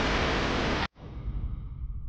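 A steady, loud hiss that cuts off abruptly about a second in, leaving only a faint low background.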